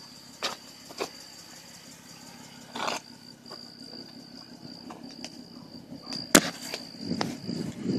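Night insects chirring at a steady high pitch, fading in and out, with a few scattered clicks and a short rustle; a sharp click a little after six seconds in is the loudest sound, and low rustling follows near the end.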